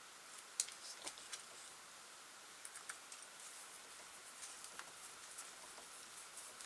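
Faint scattered light clicks and taps of small tools and hard parts being handled, over a low steady hiss.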